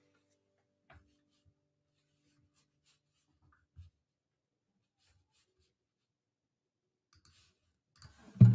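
Near-silent room with a couple of faint clicks, then an acoustic guitar strummed loudly just before the end.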